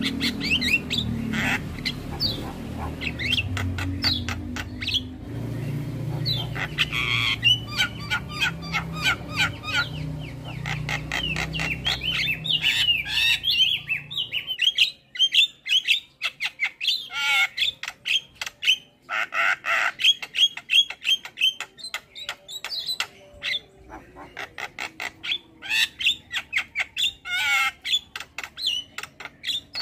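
Starlings calling in fast, varied chattering phrases with harsh squawks and whistled notes. A low rumble sits under the calls and stops abruptly about halfway through.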